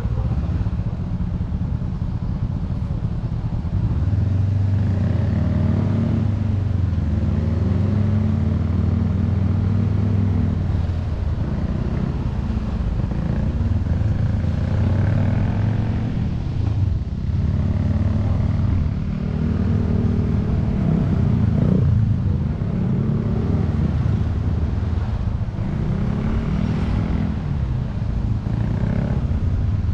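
Honda CBR400R parallel-twin engine running at low road speed, heard from on the bike. Its pitch rises and falls repeatedly as the throttle is opened and closed.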